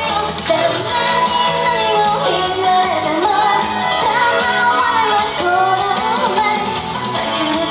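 A woman singing a pop song live into a handheld microphone, her amplified voice carrying a gliding melody over the accompanying music.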